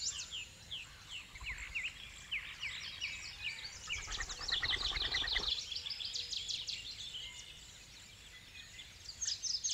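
A dense chorus of many small birds chirping, with rapid high chirps overlapping throughout; the chirping thins out in the second half and picks up again near the end.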